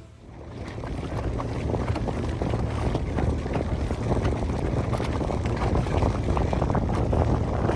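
Wind buffeting the microphone aboard a small boat under way in choppy open water, with water slapping and splashing against the hull. It fades in over about the first second.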